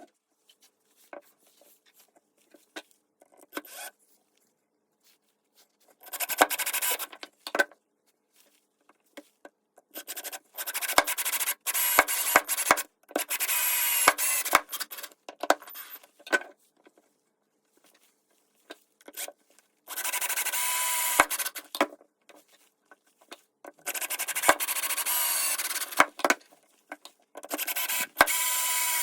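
Repeated rasping scrapes in stretches of one to three seconds, with pauses between.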